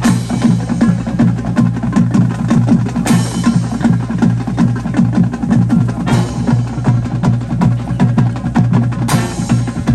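Marching band playing, with the drums prominent over steady low brass notes and a loud crash about every three seconds.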